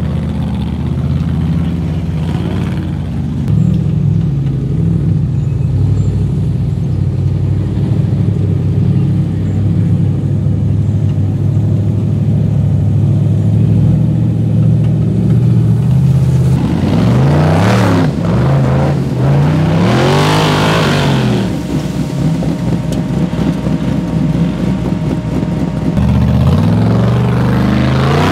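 Rock bouncer buggy's 550 hp LS3 V8 pulling under load on a steep climb, running steadily, then revving up and down several times in quick succession about two-thirds of the way through before settling again.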